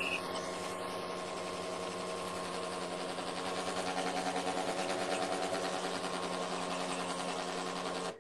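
Electric blender motor running steadily, blending a thick chickpea and sweet potato kebab mixture, then cutting off suddenly near the end.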